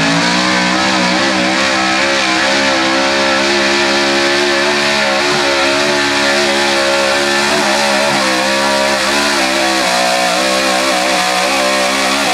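Modified Chevrolet 4x4 pickup's engine held at full throttle under load as the truck drags a weight-transfer sled: a loud, steady high-revving run with slight wavering in pitch.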